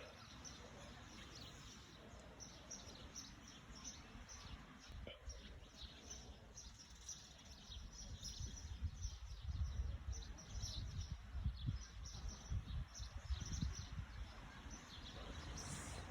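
Small birds chirping over and over in short high calls, with a low rumble of wind on the microphone that picks up in the second half.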